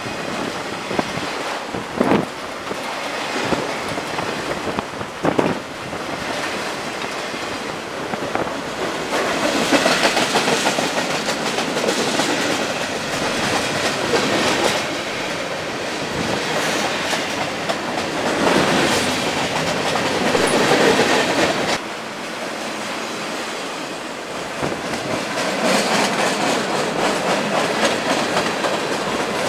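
Freight cars rolling past at close range: a continuous rumble and rattle of steel wheels on rail, with clickety-clack over the rail joints and two sharp clacks near the start.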